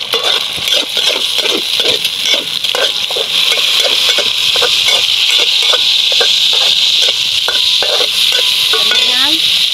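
Eggs and chopped chillies frying in oil in a stainless steel wok: a steady sizzle, with a metal spatula scraping and tapping the pan in quick repeated strokes.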